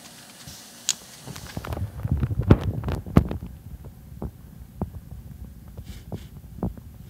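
Thumps, knocks and scuffs of a cat moving about on the floor of a corrugated cardboard box. A sharp click comes about a second in, a dense cluster of heavier thumps follows from about two to three and a half seconds in, then lighter scattered knocks.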